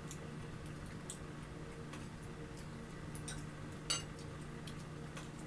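A metal spoon clinking once sharply against a ceramic plate about four seconds in, with a few faint cutlery clicks over a steady low hum.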